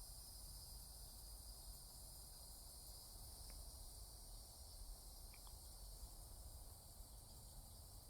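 Faint, steady high-pitched insect chorus, like crickets, with a low rumble underneath and two faint ticks near the middle.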